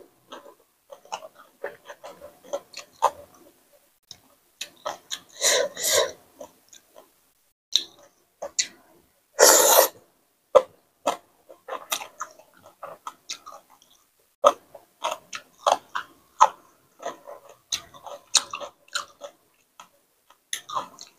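Close-miked chewing and mouth smacks of someone eating spicy papaya salad with salmon, many short irregular wet clicks, with two louder noisy bursts around five to six seconds in and near ten seconds.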